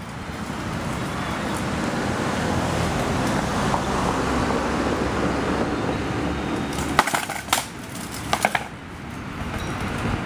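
A quick run of sharp knocks from weapon blows in armoured sparring, clustered about seven to eight and a half seconds in, over steady wind noise on the microphone.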